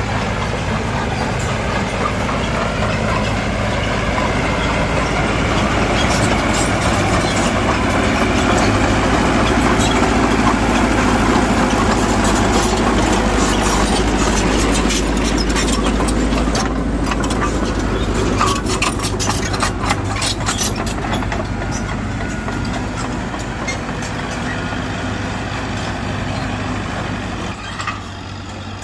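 Heavy diesel earthmoving machinery running steadily, most likely the Mitsubishi BD2G bulldozer at work. It grows louder toward the middle, with a long stretch of rapid clanks and rattles.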